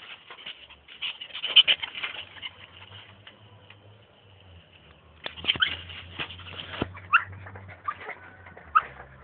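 A dog moving about close to the microphone, with scuffling, rustling and snuffling noises and a few short high squeaks near the end.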